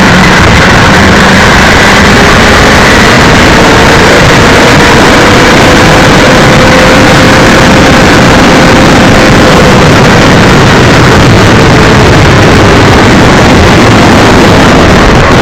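Motorcycle riding at road speed: loud, steady wind rush on the camera's microphone, with the engine's note faintly underneath, drifting slowly up in pitch and back down.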